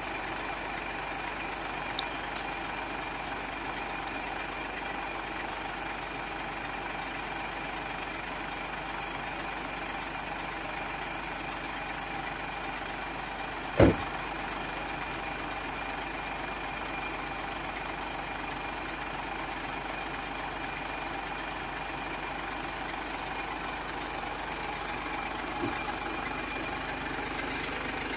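Steady hum of an idling engine, with a faint steady high tone above it. One short, sharp knock about fourteen seconds in.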